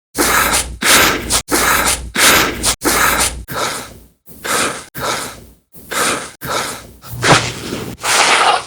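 A quick run of short human breath sound effects, breaths and gasps, about a dozen one after another, each roughly half a second long and cut off sharply before the next.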